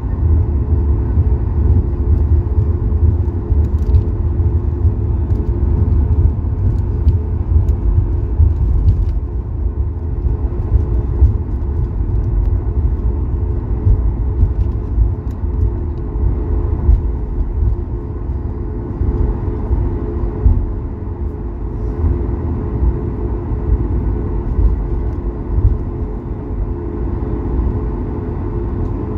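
Cabin noise of a Boeing 737-8200 taxiing: a steady, loud low rumble from the wheels and the CFM LEAP-1B engines at low thrust, with a steady engine hum over it.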